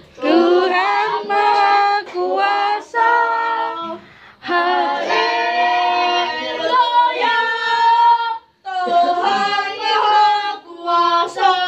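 A group of children singing a song together, with no instruments, in sung phrases broken by two brief pauses, about four and eight and a half seconds in.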